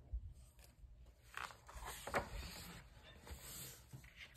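Faint rustling and swishing of a coloring book's paper page being turned by hand and smoothed flat, with a few light taps, busiest about a second and a half to two and a half seconds in.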